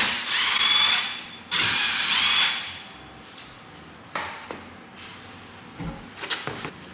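A power tool whirring in two bursts of about a second each, spinning up at the start of each, followed by a couple of sharp clicks.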